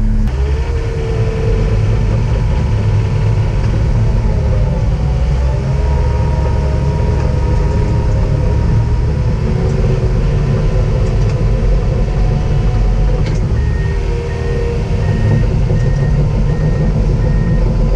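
Komatsu D39PX-24 crawler dozer's diesel engine running steadily under load while pushing dirt, heard from inside the cab, with a faint steady whine over the engine. A series of evenly spaced high beeps starts about three-quarters of the way through.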